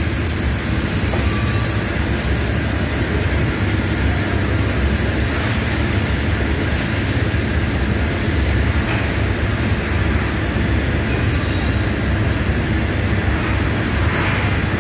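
Automatic powder coating line running: a steady, loud low drone of machinery with an even hiss of air over it.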